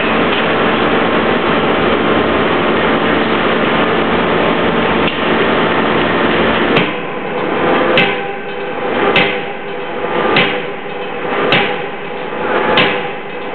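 Beche KGH 8.0 B drop-forging hammer striking a hot steel billet in the die six times, about one blow every 1.2 seconds, each blow a sharp bang with ringing after it. Before the first blow there is a loud, steady machinery noise.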